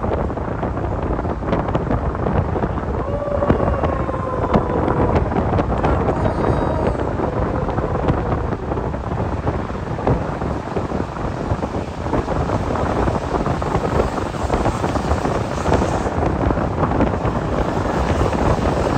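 Strong wind buffeting the phone's microphone over the steady noise of a moving road vehicle. A faint held note, with a second note an octave above it, sounds through the noise from about three to eight seconds in.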